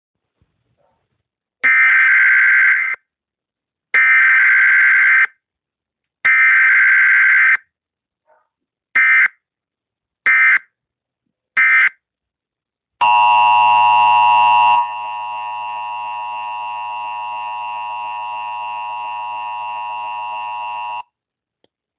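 Emergency Alert System test tones. Three long bursts of the screeching digital header data come first, then three short bursts, then the steady two-tone attention signal, held for about eight seconds and dropping in level after its first two seconds.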